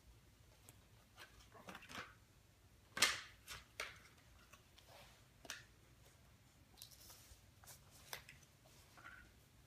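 Large floor jigsaw puzzle pieces being picked up, slid and set down on a wooden floor: scattered soft taps and rustles, the loudest about three seconds in.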